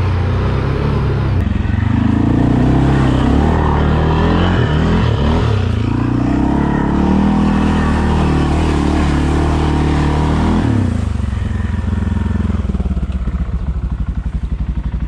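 ATV engine running under throttle, its pitch rising and falling as it revs, then dropping back to a steady idle about eleven seconds in.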